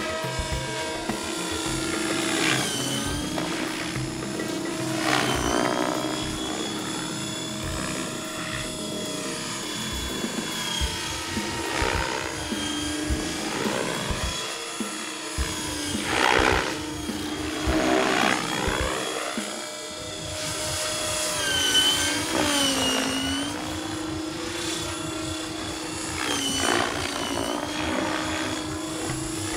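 Large radio-controlled 3D helicopter in flight: a steady rotor and drivetrain whine whose pitch dips and recovers several times as it is put through aerobatic manoeuvres.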